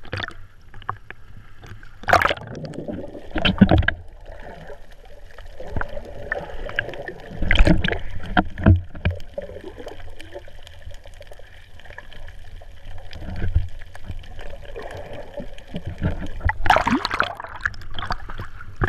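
Seawater sloshing and splashing over a camera as it rides the surface and dips under, with muffled underwater sound in between. Louder splashes come a couple of seconds in, near the middle, and again near the end.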